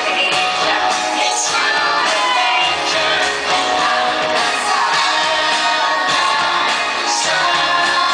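Live pop concert music with singing, loud and continuous.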